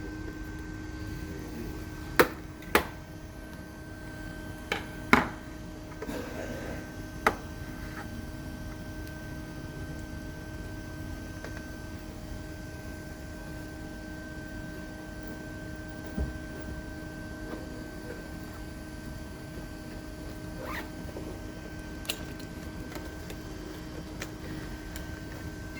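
A few sharp clicks and knocks, several close together in the first eight seconds and a few more spread out later, over a steady electrical hum.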